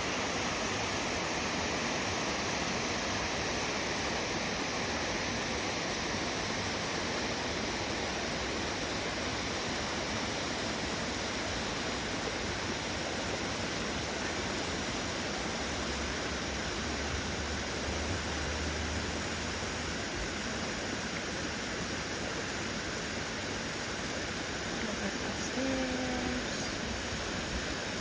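Waterfall rushing with a steady, even roar of falling water, and a brief faint voice near the end.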